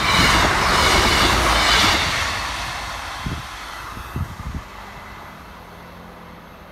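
Northern Class 158 diesel multiple unit passing at speed close by: a loud rush of wheels and engine for about two seconds, then fading steadily as the train moves away. A few low thumps come near the middle.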